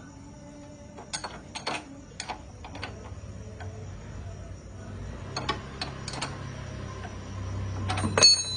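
Scattered light clicks and taps, irregularly spaced, over a faint steady high-pitched chirring, with a low hum that grows louder in the second half.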